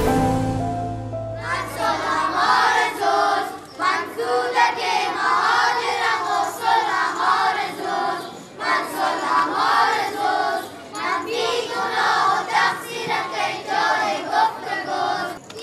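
A group of children singing together, after background music fades out within the first second or so.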